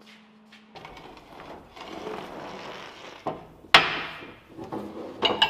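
Hydraulic hoses being handled and pulled along the spreader's steel hose loop: a rustling scrape, a knock, then a sharp clank with a short ring a little under four seconds in, and a few more sharp knocks near the end.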